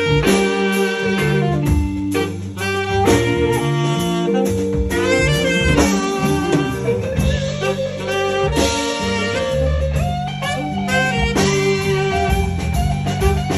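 Live band music: saxophone playing the lead over electric guitar, electric bass and a drum kit.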